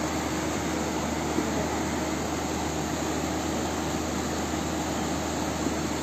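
Muddy floodwater rushing fast down a street: a steady, even rushing noise with no breaks.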